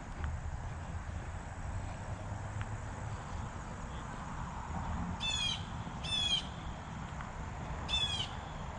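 A bird giving three short calls, each under half a second with a rich, slurred tone. The second comes about a second after the first and the third about two seconds later, over a low, steady background rumble.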